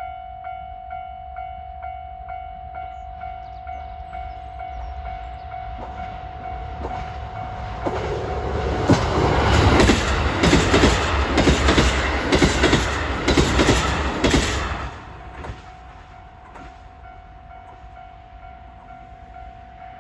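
A KiHa 183 series diesel express train approaching and passing close by, its wheels clacking over the rail joints, loudest from about 8 to 15 seconds in and then fading. Under it, a level-crossing warning bell rings a steady pulsing tone before and after the train goes by.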